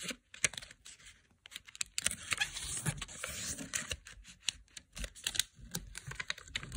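Sheet of origami colour paper being folded by hand, edges brought in to the centre line and creased down: crisp paper rustling and scratching with many small sharp clicks, busiest from about two seconds in.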